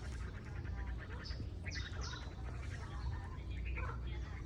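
Several small birds chirping and calling: a fast buzzy chatter in the first second, then short high chirps that sweep downward, over a steady low rumble.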